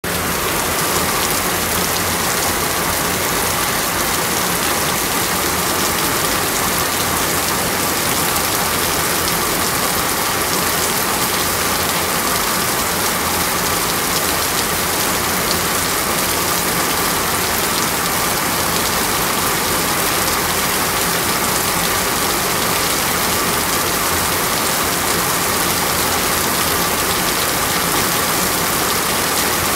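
Steady rain: an even, unbroken hiss at a constant level throughout.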